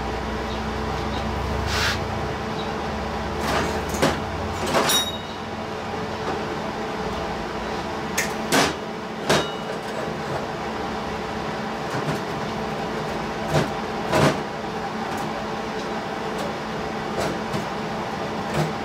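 Steady machine hum with a low rumble that fades after about five seconds, broken by a dozen or so sharp clicks and knocks as a MIG welding torch and steel square tubing are handled on a steel table.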